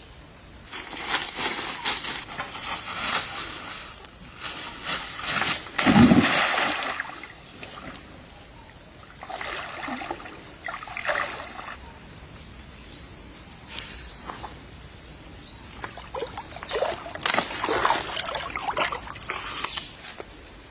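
Water splashing and sloshing in irregular bursts, with one heavy splash about six seconds in.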